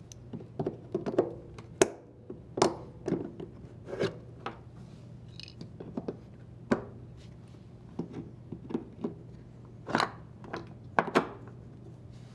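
Irregular sharp clicks, taps and clinks of a half-inch deep well socket and pliers working the plastic locking pins out of a washer's front shock absorber mounts, over a low steady hum.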